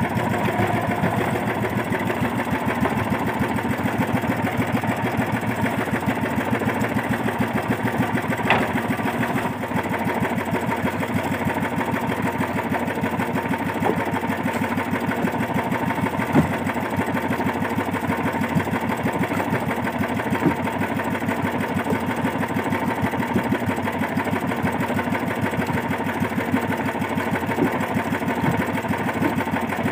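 Small engine of a motorized outrigger boat running steadily with a fast, even putter. A few sharp knocks stand out about a third and two-thirds of the way in.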